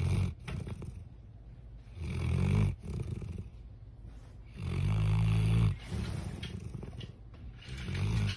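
A sleeping bloodhound snoring in four deep, rattling snores about two to three seconds apart, the third the longest and loudest, with softer breathing between them.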